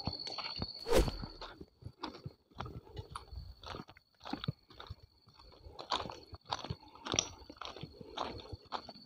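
Footsteps crunching on railway track ballast, an uneven step about every half second, with one louder knock about a second in. A steady high-pitched tone runs behind.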